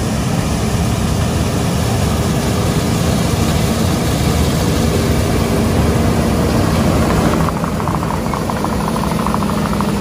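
John Deere S670 combine running under load while harvesting soybeans, a steady engine and threshing drone heard up close. About seven and a half seconds in, a fast rattling joins in as the header passes near.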